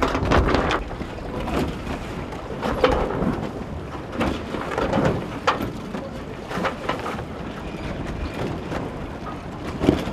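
Wind buffeting the microphone and water rushing and splashing aboard a sailing yacht under way, broken by irregular sharp slaps and knocks.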